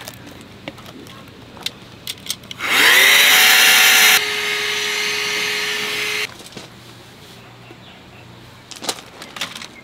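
Small handheld electric air pump spinning up with a rising whine and running as it inflates an air sofa through its valve. It is loud for about a second and a half, then runs quieter and stops about six seconds in.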